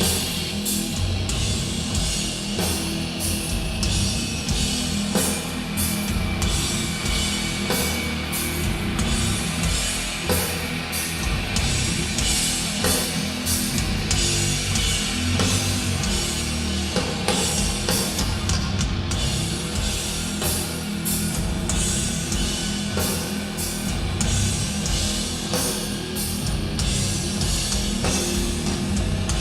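Doom metal band playing live: heavily distorted guitars and bass over slow, pounding drums, loud and unbroken.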